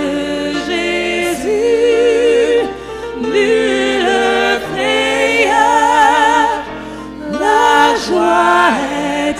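A French hymn sung by a small group of voices, a man and two women, in long held notes with vibrato.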